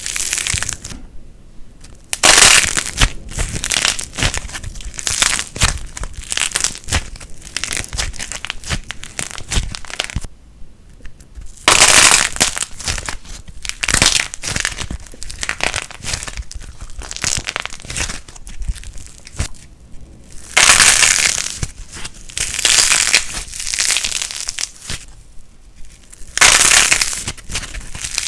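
Light plasticine being squeezed and pressed in the hands, giving off dense runs of small crackles and pops. Louder, fuller stretches of crackling come every few seconds between quieter stretches.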